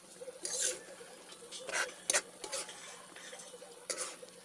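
A spoon stirring pork adobo in a pan, with several short, separate scrapes against the pan.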